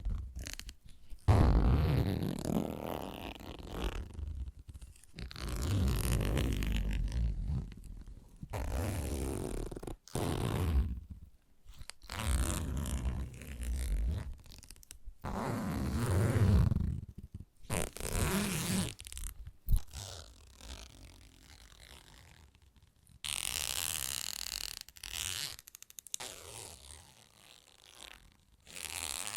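Fingertips scratching and rubbing close to the microphone in slow, irregular strokes of a second or two each, with a deep rumble under each stroke. A quieter stretch comes about two thirds of the way in, followed by a brighter, hissier stroke.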